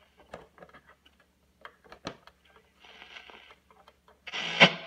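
1959 Westinghouse Model 864L6 AM tube radio being tuned across the band: scattered clicks and crackle between stations with a brief faint snatch of a station, then a station comes in loudly near the end.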